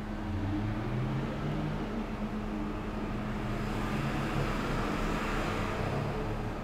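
Background noise under a steady low hum, swelling for a couple of seconds past the middle, with no speech.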